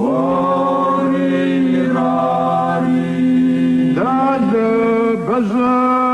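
Men's folk song from the Caucasus: a lead singer's voice gliding between notes over a steady drone held by the other men.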